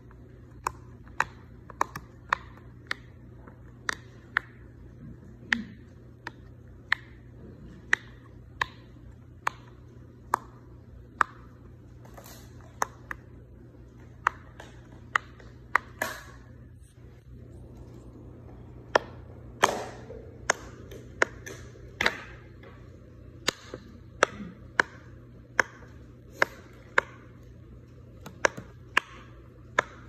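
Silicone pop-it fidget toy bubbles pressed in one by one with a finger, each giving a short, sharp pop, about one to two a second.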